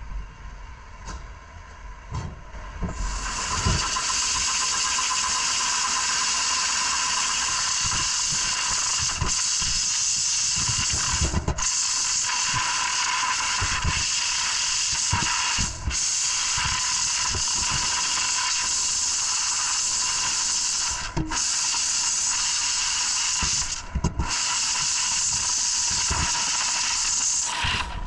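A few knocks and clatters, then about three seconds in a loud, steady hiss of compressed air starts, with a faint steady whine under it. The hiss breaks off briefly a few times and picks straight up again.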